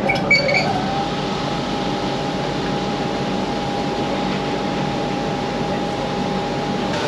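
Diamond-blade rock saw running with a steady whine over a noisy hiss as it slices a dredged rock sample; the whine rises a little and settles about a second in. A few short high clinks sound at the start.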